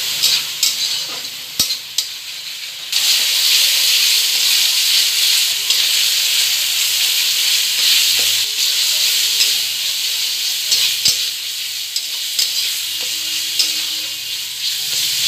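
Spice and onion-ginger-garlic paste sizzling in hot oil in a kadai while a metal spatula stirs and scrapes it, the masala being fried down for a curry. The sizzle grows louder about three seconds in, and the spatula's strokes against the pan come through at intervals.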